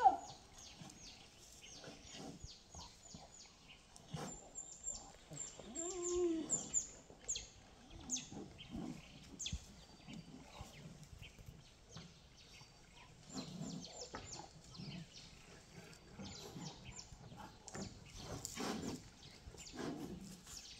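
Small birds chirping with quick high ticks and twitters, and one short call that rises and falls in pitch about six seconds in.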